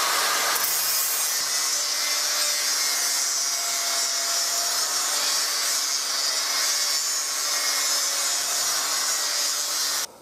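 Angle grinder with a coarse 36-grit sanding disc grinding into a walnut gunstock, rough-shaping the butt: a loud, steady grinding hiss with the motor's whine under it, stopping abruptly just before the end.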